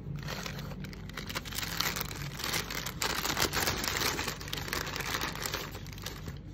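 White tissue paper crinkling and rustling as it is pulled out of a leather handbag and crumpled in the hand: a dense run of crackles that is loudest in the middle and fades near the end.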